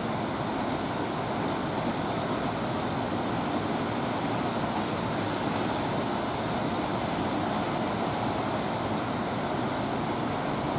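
Torrential rain falling steadily in a thunderstorm: an even, unbroken hiss.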